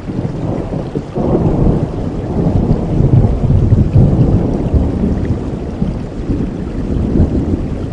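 Thunder rumbling over steady rain. The rumble swells about a second in, is loudest around the middle, and slowly dies away.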